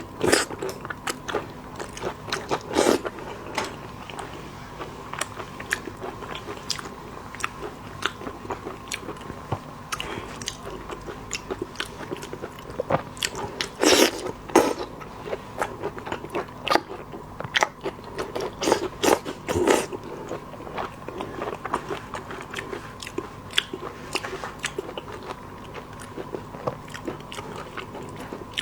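Close-miked eating of seafood: irregular crunching bites and chewing with wet clicks, a few bites louder than the rest.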